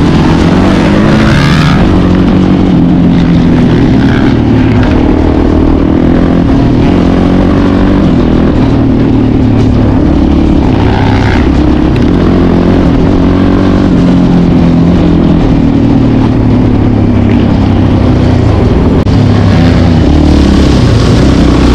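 Quad bike engine running hard close to the microphone, its pitch rising and falling as the throttle is worked on a dirt road.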